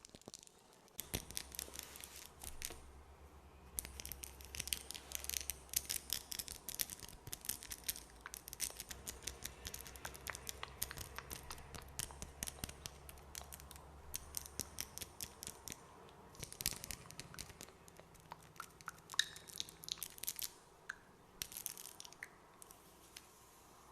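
Close-miked ASMR mouth sounds: rapid wet, sticky clicks and smacks in dense clusters, with short pauses between them.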